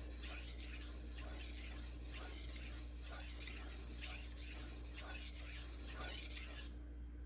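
Steel knife blade scraped back and forth over a hard Juuma Cobalt Blue 1200-grit waterstone in repeated sharpening strokes, stopping near the end.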